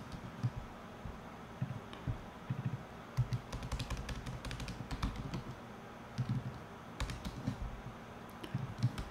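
Typing on a computer keyboard: irregular spurts of key clicks with short pauses between them.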